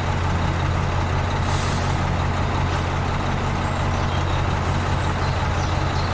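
A motor running steadily with a strong low hum and hiss.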